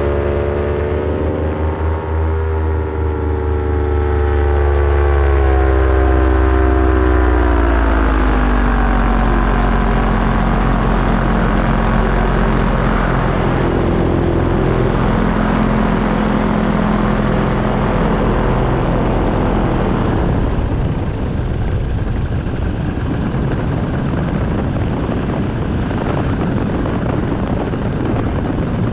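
Paramotor engine and propeller running in flight, heard from the pilot's seat. Its pitch drops over the first several seconds as the throttle comes back, then holds steady. About two-thirds of the way through, the engine tone becomes less distinct under a more even rushing noise.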